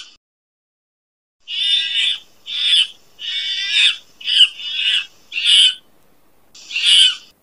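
Ring-tailed lemurs calling: about seven short, harsh high-pitched calls, starting about a second and a half in, some coming back to back.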